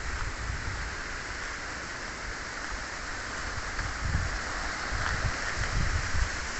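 Strong wind blowing across the microphone: a steady rushing hiss over an uneven, gusting low rumble.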